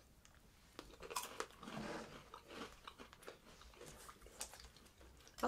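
Crunching and chewing of crisp biscuit sticks dipped in cream, a string of short crackles and clicks.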